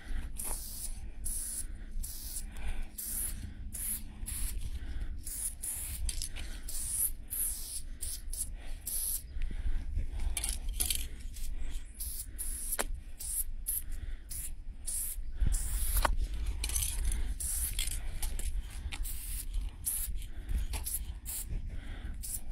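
Aerosol spray paint can hissing in many short bursts, with brief gaps between strokes, as lines are sprayed onto a wall. A steady low rumble runs underneath.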